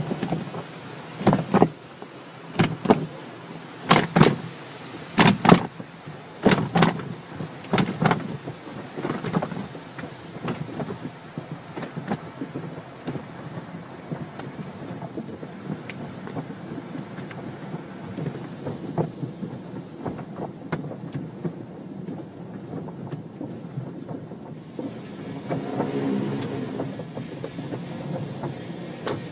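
Automatic car wash heard from inside a car: a steady spray of water with a run of loud slaps about once a second over the first ten seconds that then fade, and a heavier rumbling swell near the end.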